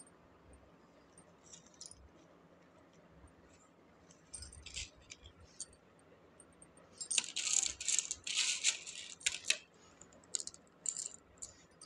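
Small white decorative pebbles clicking and clinking against one another as they are handled and set into a planted terracotta pot. A few light clicks come about four seconds in, then a busy run of clinking from about seven to nine and a half seconds in, with scattered clicks after.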